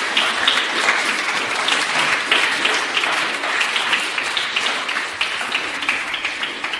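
Audience applauding: dense, continuous clapping that begins to taper off near the end.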